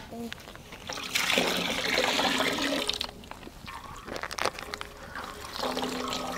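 Milk pouring from a plastic packet into a large metal pot, a splashing trickle for about two seconds starting about a second in, then quieter with a few small handling clicks.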